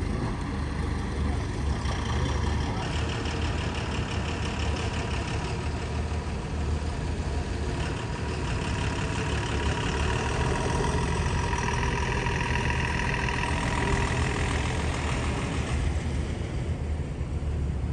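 Diesel engines of earthmoving machinery running steadily with a low rumble. A higher whine comes in a few seconds in and fades near the end.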